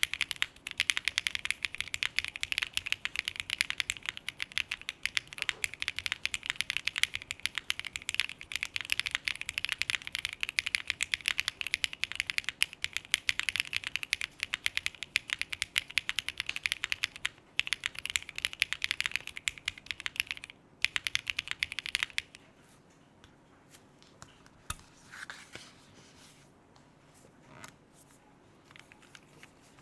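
Snake60 R2 mechanical keyboard with Kailh BCP switches being typed on fast and steadily, with a couple of short pauses. The typing stops about three-quarters of the way through, and after that only a few faint scattered sounds are heard.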